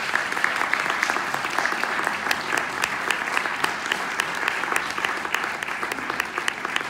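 Audience applauding steadily, a dense patter of many hands with individual sharp claps standing out.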